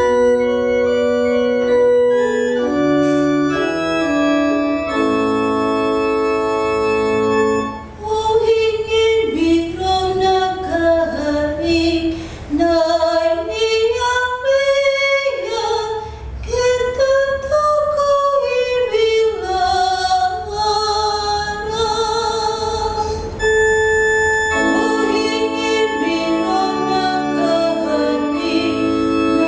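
Organ plays sustained chords as an introduction, then a woman's solo voice sings a Portuguese responsorial psalm over the organ accompaniment. The voice stops about three-quarters of the way through and the organ carries on alone.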